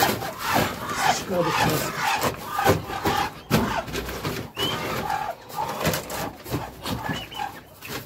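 Scraping, rubbing and knocking of a wooden board being handled against a wooden, wire-mesh quail cage. A few short high chirps from the quail, about halfway through and near the end.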